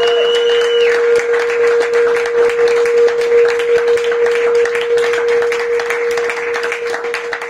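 A jazz band's last held note stops about a second in, and audience applause follows. One steady tone holds underneath the clapping.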